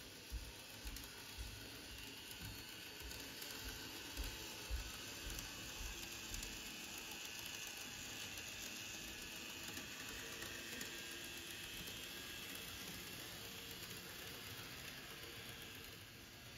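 A model JR DE15 diesel locomotive with a Russell snow plow running along the track, a faint mechanical whir of its motor and wheels that grows louder as it passes close by and fades off toward the end. A few soft low thumps come in the first few seconds.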